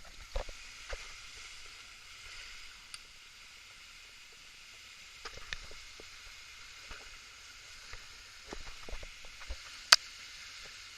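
Steady rush of river water around a rafting boat, with scattered short knocks and splashes and one sharp click about ten seconds in.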